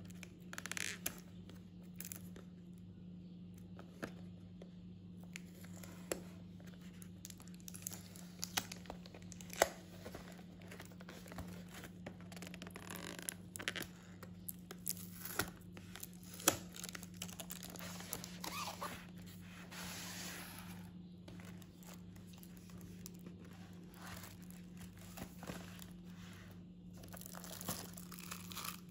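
Handling of a cardboard washi tape box: the cardboard sleeve sliding and scraping, sharp clicks and taps of fingernails on the card, and crinkling of the plastic wrap around the tape rolls. A steady low hum runs underneath.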